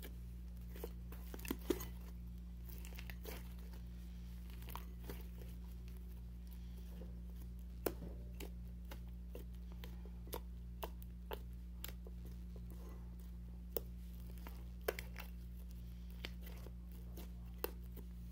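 White slime being kneaded and squeezed by hand in a glass bowl, giving irregular sharp pops and crackles as trapped air pockets burst, over a steady low electrical hum.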